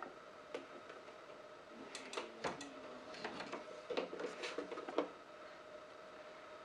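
Plastic clicks and clatter of an embroidery hoop being unlatched and slid off a Brother Stellaire embroidery machine's carriage. The clicks bunch up from about two seconds in and end with the sharpest knock about five seconds in. A faint steady hum runs underneath.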